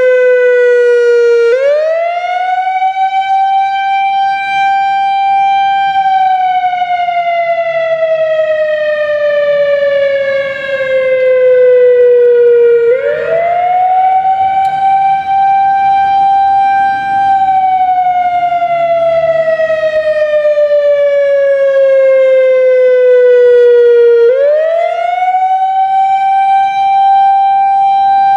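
Analog Whelen WS 3000-series electronic warning siren sounding its wail: a loud pitched tone that climbs fast, holds at the top for a few seconds, then slowly falls, three times. The quick rise marks this unit as an analog Whelen.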